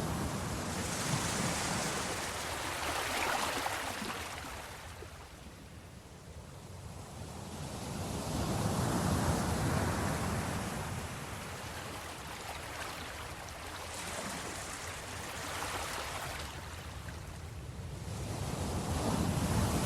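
Sea waves breaking on the shore. The surf swells and ebbs, loudest about a second in, again around nine seconds and near the end.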